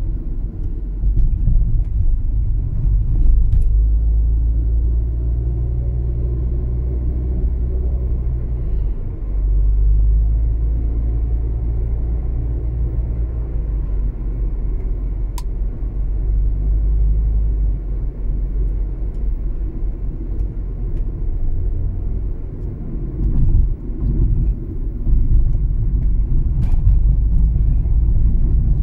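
Steady low rumble of a car driving on city streets, the engine and tyre noise heard from the moving car, dipping briefly twice.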